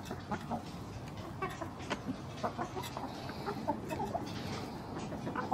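Backyard chickens clucking: a steady scatter of short calls mixed with brief sharp clicks.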